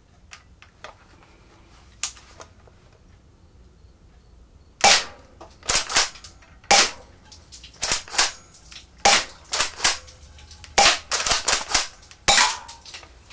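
Double Eagle M58A spring-powered airsoft pump shotgun firing repeatedly at water-filled aluminium soda cans. After a quiet start there are about a dozen sharp snaps, from about five seconds in, often in close pairs as shots and pump strokes follow each other, with BBs punching into the cans.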